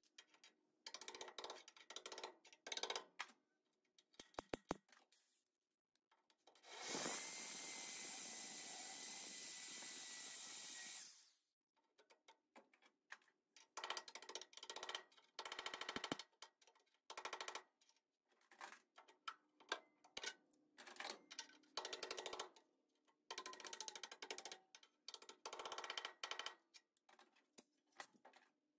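Metal tools scraping, clicking and prying on the early Ford Bronco's sheet-metal body as a welded panel is peeled back. A power tool runs at an even level for about four seconds near the first third.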